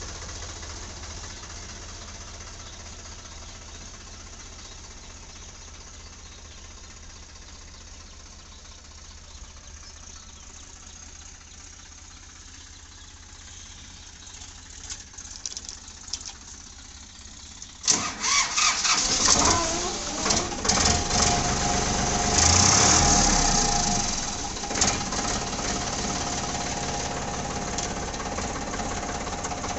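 Diesel tractor engine cranked and started about two-thirds of the way through, revving up and down for a few seconds before settling into a steady idle. Before it starts there is only a faint low hum and a few light clicks.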